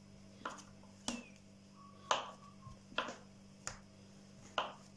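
Knife blade cutting through soft dough and tapping the wooden countertop, six sharp taps about a second apart.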